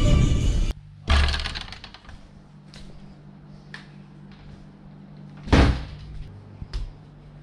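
Music cuts off, then a thump about a second in, a few light clicks, and a louder thud about five and a half seconds in, over a low steady hum in a room.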